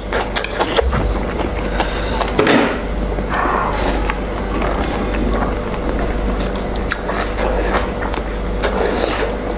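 Close-miked eating: wet chewing and slurping of noodles, with a constant stream of small wet clicks and a couple of short slurps about two and a half and four seconds in.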